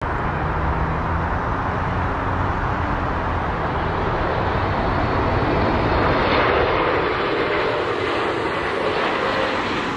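Boeing 777 airliner's jet engines on final approach, a steady loud whooshing engine noise with a low hum underneath.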